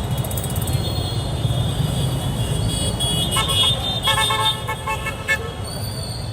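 Heavy street traffic: a steady rumble of engines and tyres, with several short vehicle horn honks of differing pitch from about three seconds in until just past five seconds.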